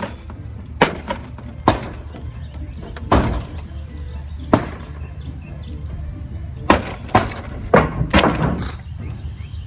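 Demolition hammer blows breaking out the interior of an old house: about eight heavy irregular impacts with crashing, breaking debris, bunched closer together near the end.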